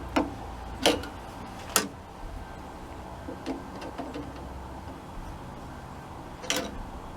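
A screwdriver working the hose clamp on a Type 1 VW air breather: a few sharp metal clicks, three in the first two seconds and one more near the end, with faint handling noise between.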